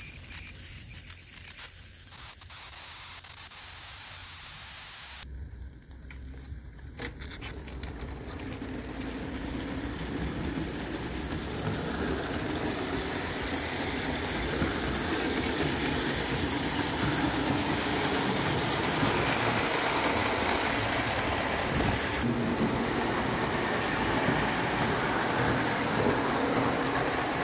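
Bing 0 gauge live steam locomotive: steam hissing with a steady high whistle-like tone for about five seconds, cutting off suddenly. Then the locomotive runs on tinplate track, its running noise building gradually louder and holding steady.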